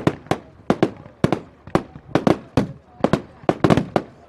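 Fireworks going off in a rapid, irregular series of sharp bangs, several a second.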